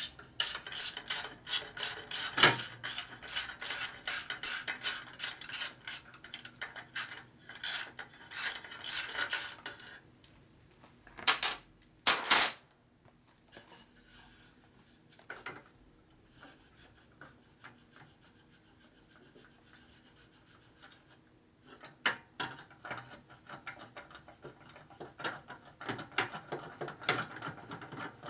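Hand ratchet wrench clicking in fast runs of strokes as the rear exhaust pipe's fasteners are worked loose, with two louder metal clanks a little before halfway. After a quiet pause the ratcheting starts again near the end.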